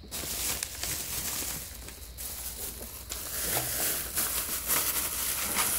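Thin plastic shopping bag rustling and crinkling as it is handled and shaken to empty it.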